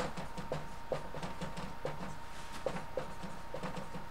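Dry-erase marker writing on a whiteboard: an irregular run of short squeaky strokes as letters and numbers are drawn.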